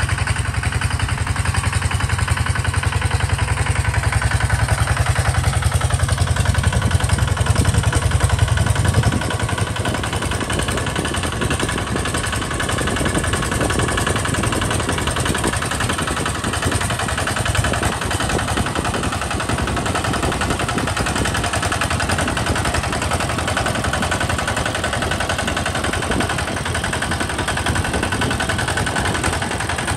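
Two-wheel walking tractor's single-cylinder diesel engine running steadily under load while it pulls a plow through sandy soil. About nine seconds in, the low hum drops and the sound turns quieter and thinner.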